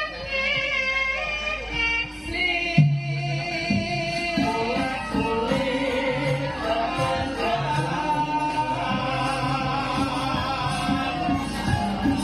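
Javanese gamelan music with a sinden, a female singer, singing a wavering, ornamented line. A loud stroke comes about three seconds in, after which the low instruments play steadily beneath the voice.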